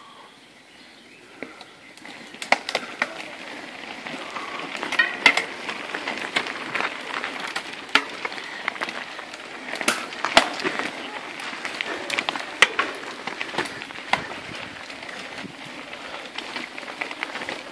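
A pack of mountain bikes riding past over a stony dirt trail: tyres crunching on gravel and loose stones, with many sharp clicks, knocks and rattles from the bikes. It grows louder about two seconds in as the riders arrive.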